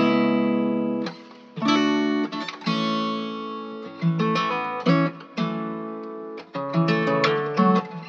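Background music on acoustic guitar: plucked notes and strummed chords, each struck sharply and then fading.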